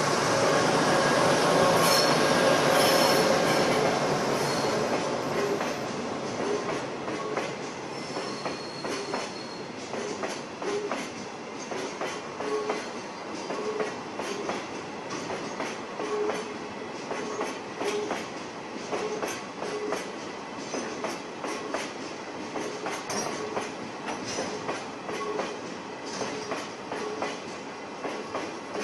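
Seino Railway DD40 diesel-hauled freight train passing slowly, loudest in the first few seconds as the locomotive goes by. A long line of hopper wagons follows, rolling past with a steady run of wheel clacks over rail joints and short, recurring wheel squeals.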